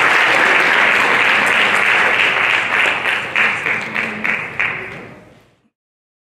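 Audience applauding: dense clapping that thins into separate claps after about three seconds and fades out.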